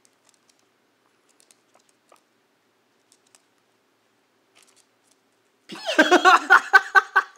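A few faint clicks, then about five and a half seconds in a loud burst of a woman's laughter in quick pulses.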